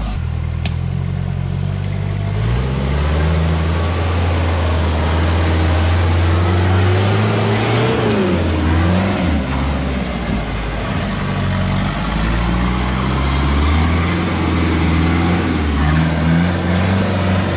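Modified Toyota Hilux rock crawler's engine running at low revs under load as it climbs a rock ledge, its note rising and falling a few times as the throttle is worked.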